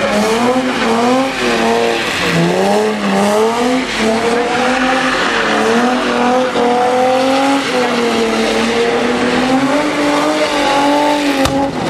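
BMW E36 drifting in circles with its engine held at high revs, the pitch rising and falling with the throttle, while the rear tyres screech continuously.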